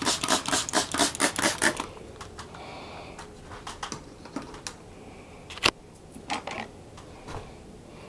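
Trigger spray bottle of vinegar pumped rapidly at a wallpaper border, about six quick squirts a second, stopping about two seconds in. Afterwards only faint handling noises and one sharp click.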